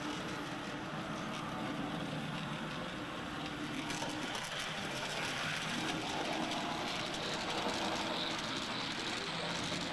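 Model train running on the layout's track: a steady whir of the small electric locomotive and its wheels on the rails.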